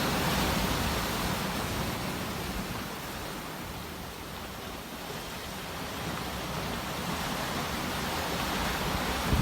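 Sea waves washing in, a steady rush that eases off about four seconds in and swells again near the end.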